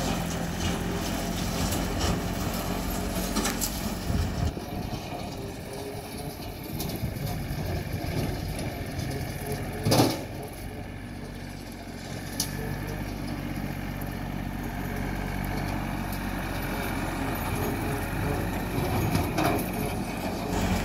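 John Deere 790 compact tractor's three-cylinder diesel running steadily with its 5-foot PTO rotary cutter engaged as it drives across the field. A single sharp knock about halfway through is the loudest sound.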